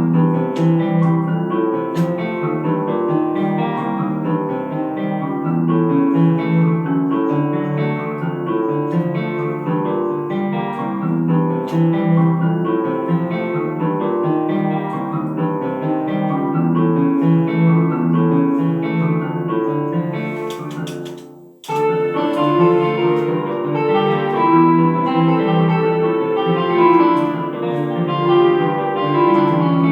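Background music with plucked guitar and piano in a steady rhythm, fading out briefly about two-thirds of the way through and starting again.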